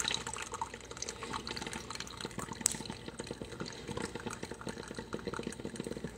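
PowerXL Grind & Go coffee maker brewing: hot coffee trickling and dripping into a travel mug, with steady, irregular small drips.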